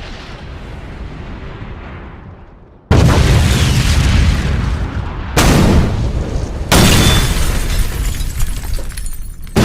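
A string of explosion sound effects. A rumble dies away, then sudden loud booms hit about three seconds in, twice more over the next four seconds, and again at the end, each trailing off in a long rumble.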